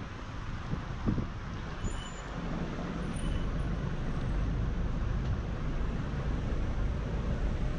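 City road traffic and a low wind rumble on the microphone of a scooter-mounted action camera riding through the street, getting a little louder about three seconds in. Two short high squeaks about two and three seconds in.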